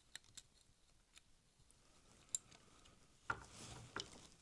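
Near silence broken by a few faint small clicks and light handling noises of the model locomotive's plastic parts as its drive shaft is worked loose, a slightly louder click with a brief rustle about three seconds in.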